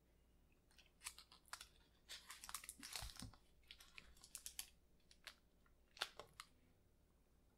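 Pleated paper cupcake liner crackling and rustling as a chocolate cupcake is pulled out of it: a run of small, faint crackles and clicks, thickest about two to three seconds in, with a sharper click about six seconds in.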